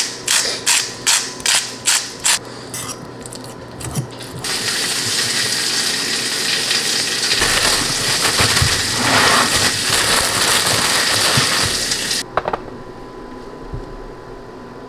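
Seasoning shaken over avocado halves in a bowl: a quick, even series of about eight rattling shakes. Then several seconds of loud, steady crinkling from a clear plastic bread bag being handled, which stops suddenly.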